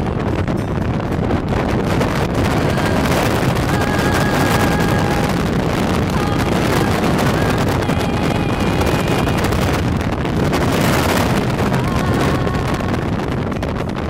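Wind rushing over a phone microphone and road noise from a car driving along a highway, loud and steady. Faint thin tones come and go above the noise.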